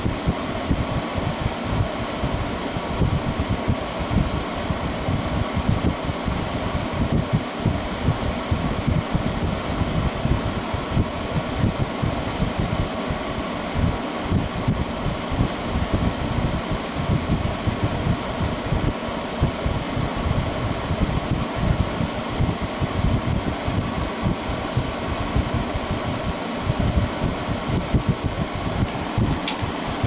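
1999 Whirlpool ACM052XJ0 5,000 BTU window air conditioner running steadily: a constant fan-driven whoosh of air through the front grille with a fluttering low rumble underneath.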